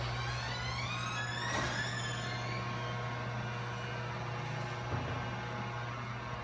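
Steady low mechanical hum of a restroom's ventilation, with a rising whine during the first two seconds and a single knock about five seconds in.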